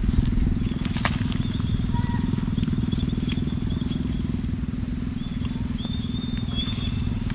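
A small engine running steadily: a low rumble of fast, even pulses. Faint high chirps are heard above it.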